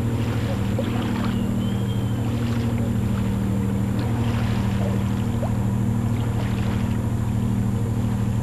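A ship's engine running at a steady pace: a loud, unbroken low drone with a fast, even throb.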